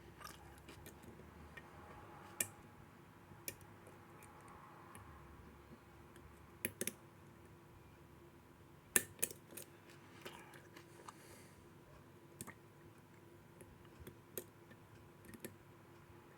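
Lock picks and tension wrench clicking faintly inside a registered mail padlock as the pins are worked: a dozen or so irregular small metal clicks, with a close pair about two-thirds of the way to the middle and the loudest click about halfway through.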